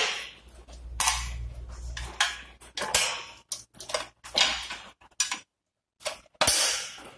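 Metal clicks, knocks and scraping as a gas bottle is secured in its mount on the machine, with a short pause near the end.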